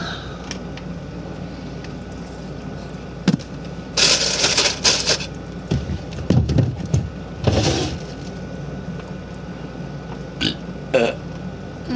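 A young woman burping: a low, rough burp about six seconds in, among several shorter noisy bursts of breath and voice.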